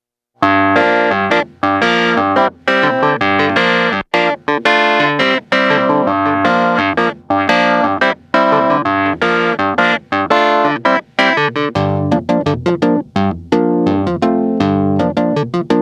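Hohner Clavinet D6 played in short rhythmic chord stabs, each cut off sharply with brief gaps between them.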